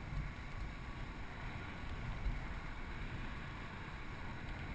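Steady low wind rumble buffeting a GoPro HD Hero 960's microphone while it hangs high in the air under a parasail.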